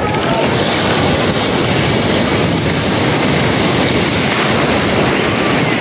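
Sea surf breaking and washing through the shallows: a loud, steady rush of water.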